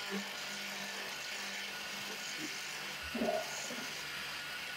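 Electric motor of a small wood lathe running steadily, with the hiss of a hand chisel cutting the spinning wood.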